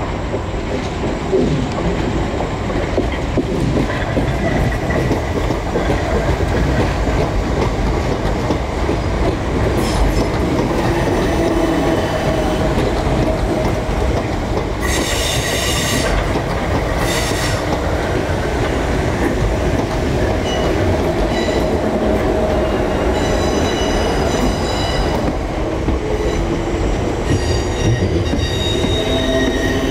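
Electric multiple-unit train running on the tracks, its wheels rumbling and clicking steadily over the rails. Short bursts of high-pitched wheel squeal come about halfway through, and thinner squeals follow near the end.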